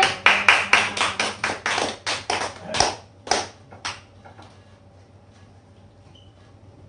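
A small audience clapping by hand for about four seconds, the claps thinning out to a last few and stopping, then quiet room tone.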